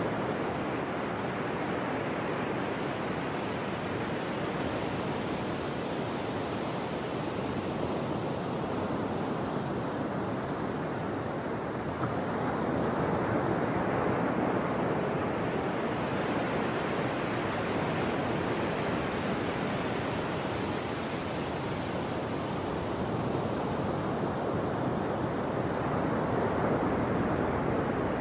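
Ocean surf: a steady rush of breaking waves that swells and eases, growing louder and brighter about halfway through and again near the end.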